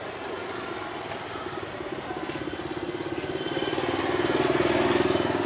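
A motorcycle engine running with an even pulsing beat, growing louder as it approaches and loudest about four to five seconds in before starting to fade.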